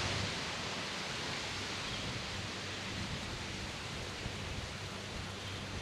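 Steady hiss of outdoor background noise, with faint rustling.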